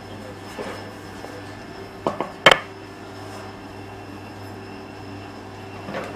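Three quick knocks of baking tools handled on a floured marble pastry counter, about two seconds in, the last the loudest, over a steady low hum.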